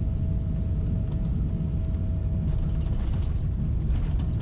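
Steady low rumble of a Boeing 777-300ER's cabin noise, its engines and airflow heard from inside the cabin, with a faint steady whine that fades out about three seconds in.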